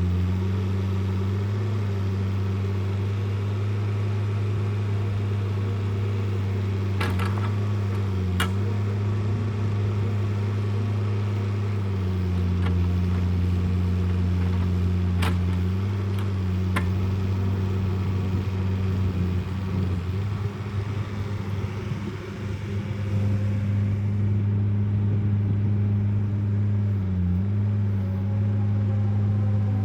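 An engine running steadily with a low hum, its pitch dipping briefly now and then as if under load. A few sharp knocks sound over it.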